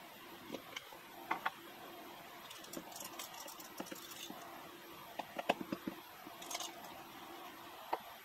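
Coffee beans poured from a jar into the hopper of a vintage hand-crank coffee grinder, a fine rattle lasting about two seconds. Scattered clicks and knocks come from the metal grinder and glass jar being handled.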